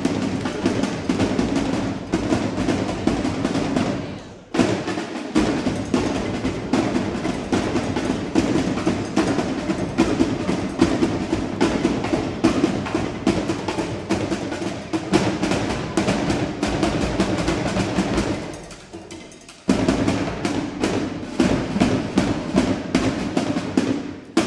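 Drill team drum squad playing fast, dense cadences on snare and bass drums. The playing drops out briefly about four seconds in and again near nineteen seconds, and each time comes back in sharply together.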